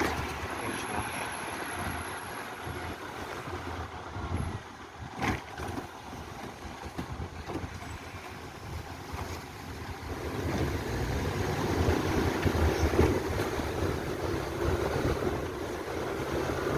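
Steady noisy outdoor rush with wind buffeting the microphone, growing louder from about ten seconds in, with a single sharp knock about five seconds in.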